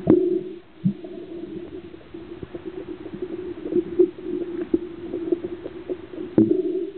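Muffled underwater sound picked up through a diver's camera housing: a steady low hum with scattered knocks and bumps, and two louder, brief low rushes, one at the start and one near the end.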